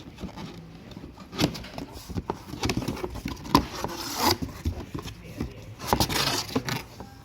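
Packaging being handled: scattered clicks and knocks, with two longer stretches of rustling or sliding about four and six seconds in, as items are taken out of a power-tool box.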